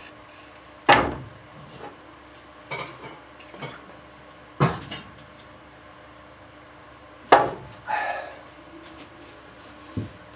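Dishes and crockery clinking and a kitchen cupboard knocking as someone rummages in an overhead cupboard: four sharp knocks and clinks a few seconds apart, with softer ones between.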